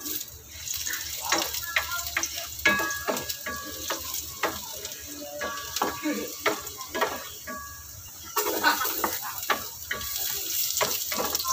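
Garlic sizzling in oil in a non-stick frying pan while a wooden spatula stirs it, knocking and scraping against the pan many times. The sizzle grows louder about eight seconds in, as sliced onion goes in.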